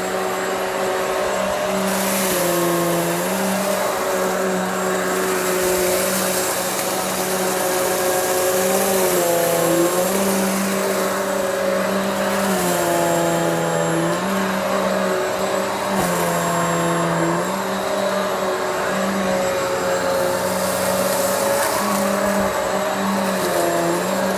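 Hoover Elite Swivel XL Pet upright vacuum cleaner running steadily while it is pushed back and forth over a rug to pick up cat litter. Its motor hum shifts slightly in pitch every second or two as the load changes with each stroke.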